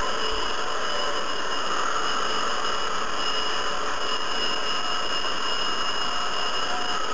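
Hair dryer running steadily: an even rush of blown air with several steady high whining tones from its fan motor over it.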